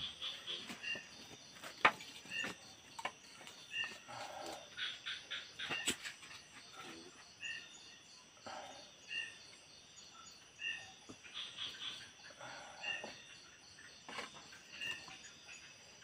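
Tropical forest ambience: a steady high insect drone with a small animal's short two-note call repeating about once a second. A few sharp clicks come in between, the loudest about two seconds in.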